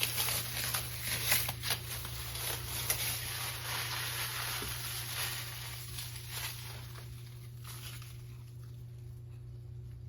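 Crinkling and rustling of paper or plastic packaging as parts are handled, a quick run of crisp little crackles that thins out over the last few seconds, over a steady low hum.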